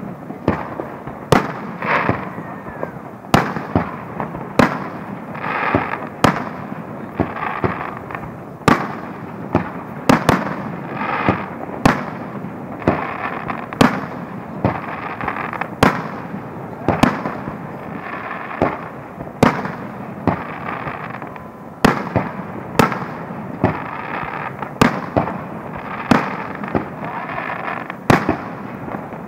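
Fireworks display: aerial shells bursting one after another, sharp bangs about once a second, with a constant din between them.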